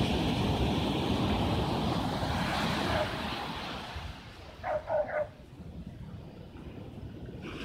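Surf washing up a sandy beach, with wind on the microphone; the rush is loud at first and falls away about halfway through. A few short high calls sound just after the middle.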